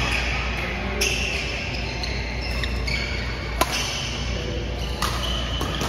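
Badminton rally: rackets striking the shuttlecock with sharp cracks a second or two apart, with short squeaks of court shoes between the hits, over a steady low hum.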